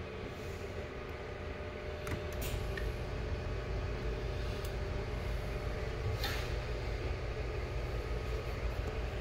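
Ole Hickory commercial barbecue smoker running: a steady mechanical hum with several steady tones, a low rumble joining about two seconds in, and a few light clicks.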